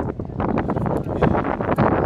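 Wind buffeting the microphone in rough, uneven gusts, over the running engine of a car rolling slowly toward the tunnel.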